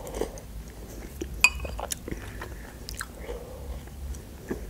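Close-miked mouth sounds of eating borscht from a spoon: quiet chewing with a few short, sharp wet clicks and lip smacks scattered through.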